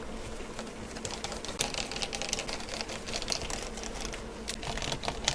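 Rapid, irregular light clicking and ticking of small hand tools, such as a precision screwdriver, working on an open laptop's internals around the cooling assembly, over a faint steady hum.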